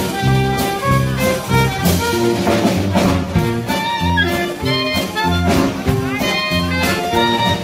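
Big-band swing music with brass and saxophone over a steady, regular beat.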